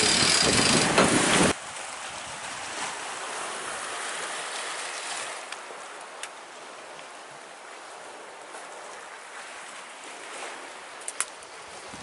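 Wind buffeting the microphone aboard a sailboat under way, cut off abruptly about a second and a half in. It gives way to a softer, steady hiss of sea waves washing on a rocky shore, with a couple of sharp clicks near the end.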